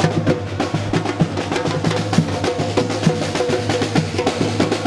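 Samba batucada drum group playing: big surdo bass drums under snare drums in a fast, dense rhythm.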